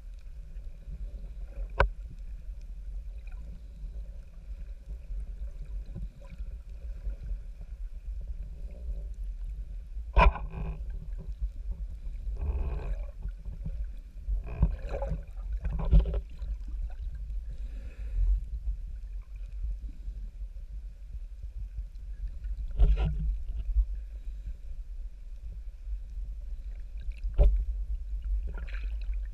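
Underwater recording: a steady low rumble of moving water on the camera, broken by a handful of sharp knocks and a few short, noisy sounds in the middle.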